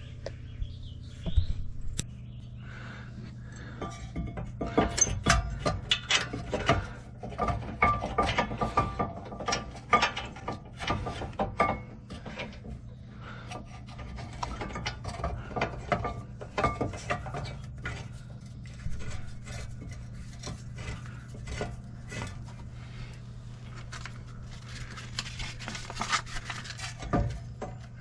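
Hand tools clinking and scraping against metal parts in irregular bursts, busiest in the first half and again near the end, over a steady low hum.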